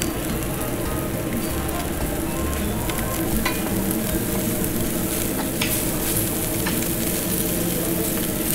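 Thin pork slices sizzling steadily on a Korean barbecue grill plate, with a few short clicks of metal tongs turning the meat.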